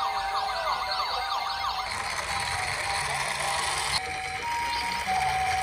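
Electronic toy sirens from ambulance and police-car minicars. For about the first two seconds a fast yelping siren sweeps over and over above a steady tone; after a noisy middle stretch, a two-tone high-low siren alternates near the end.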